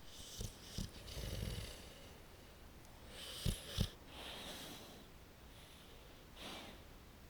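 Pit bull snoring in deep sleep: slow, raspy snoring breaths a couple of seconds apart, with two short, sharp thumps about three and a half seconds in.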